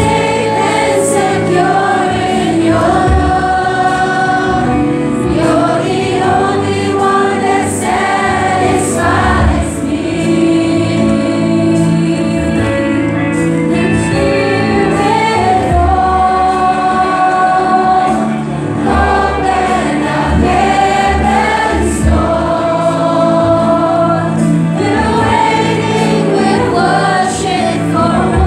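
Live church worship music: a congregation and worship team singing a worship song together, with held sung notes over a steady instrumental backing.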